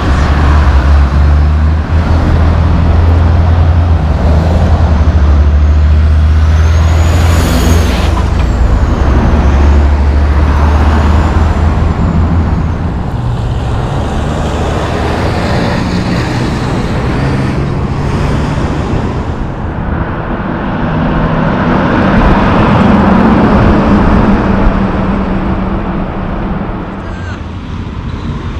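Heavy diesel truck engine running close by with a deep, steady drone as a tractor-trailer moves past, with a few brief high squeals partway through. Then steady road traffic.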